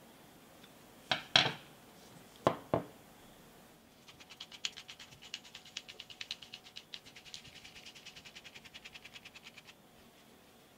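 Two pairs of sharp clicks in the first three seconds, then a fast run of light clicking, about nine clicks a second, lasting nearly six seconds, from the reassembled Rex pipe cutter being handled and worked.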